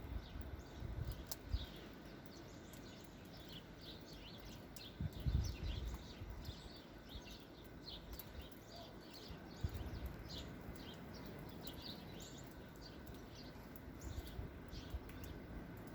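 Small birds chirping repeatedly in quick short calls, over a low rumble with a few dull low thumps near the start, about five seconds in and about ten seconds in.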